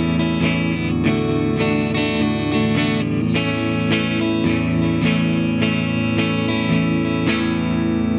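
Epiphone Les Paul SL electric guitar on its neck pickup, played clean through a Fender Champion 40 amp: a short chord progression strummed about twice a second. The owner hears the tone as really tinny and expects fret buzz.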